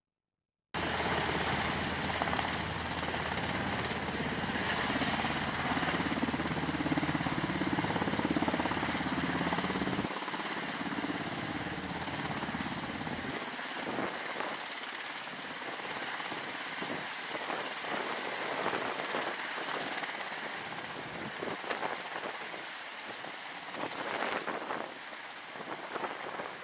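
MH-60S Sea Hawk helicopter running, its rotors and twin turboshaft engines heard as a continuous loud noise. A deep rumble drops away abruptly about ten seconds in and again a few seconds later, leaving a lighter, uneven rotor noise.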